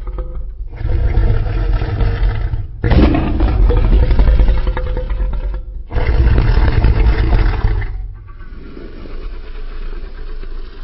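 Custom Godzillasaurus monster roar sound effect, made from layered, pitch-shifted dinosaur and big-animal roars: three deep, loud roars in a row, then a quieter low growl from about eight seconds in.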